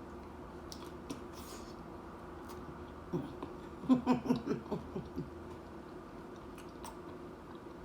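A woman chewing nachos with faint crisp ticks. About three seconds in she gives a run of short appreciative 'mm' hums, over a steady low room hum.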